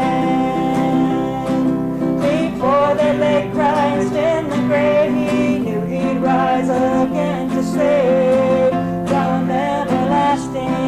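Country-gospel music: strummed acoustic guitar under a wavering melody line.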